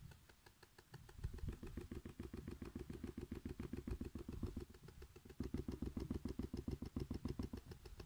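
Homemade toy washing machine running, a small motor spinning its clothes-filled drum, with a fast, even rattling pulse as the drum bounces on its wires. The rattle starts about half a second in and keeps up steadily.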